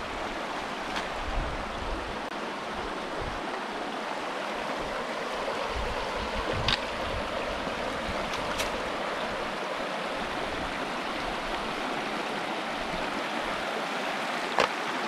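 Shallow rocky creek running over stones in riffles: a steady rush of water, with a few brief clicks.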